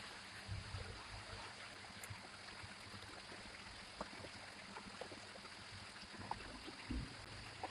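Faint handling noises of toy bike parts during assembly: a few soft low knocks and small clicks over a steady background hiss.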